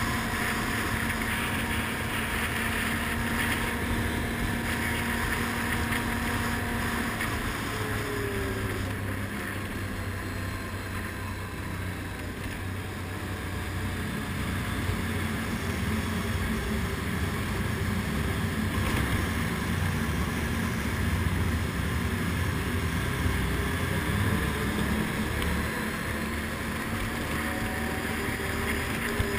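ATV (quad) engine running steadily at a cruising pace, with wind noise on the microphone.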